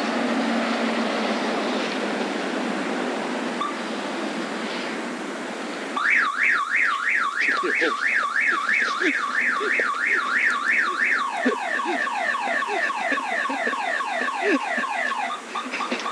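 An electronic car alarm siren starts about six seconds in, after a steady rushing noise, with a repeating rising whoop of roughly two and a half sweeps a second. About halfway through, it switches to a quicker run of falling chirps.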